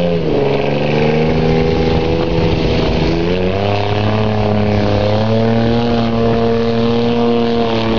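Ford Ranger pickup's engine running hard under load as the truck ploughs through deep mud. The revs dip right at the start, climb again about three seconds in, and then hold high.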